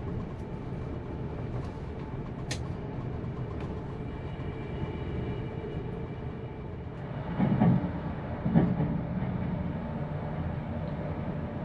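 Steady running rumble of the Spirit of the Outback passenger train, heard inside the carriage. There is a sharp click about two and a half seconds in, and two heavier knocks about a second apart past the middle.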